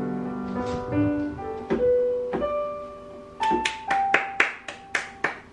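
Digital piano keyboard being played: slow held notes and chords, then from about three and a half seconds in a run of quick, sharply struck notes about four a second.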